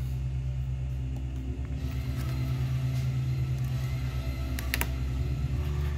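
Steady low hum from a high-power car-amplifier dyno test bench, with a couple of sharp clicks near the end.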